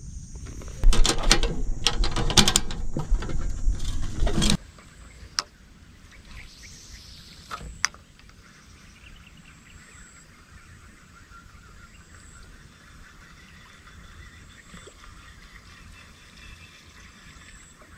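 Several seconds of loud rustling and knocking that stops abruptly, then quiet outdoor background with faint insect or bird chirping and a couple of sharp clicks.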